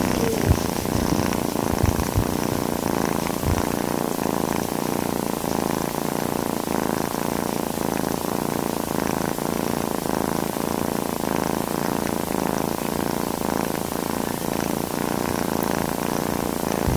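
Domestic cat purring steadily, a continuous fast rumbling throb. A few low bumps come in the first few seconds.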